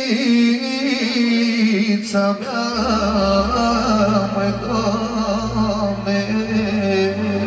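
A man singing with a wavering, ornamented voice through a microphone, over amplified backing music; deep bass notes come in about a third of the way through.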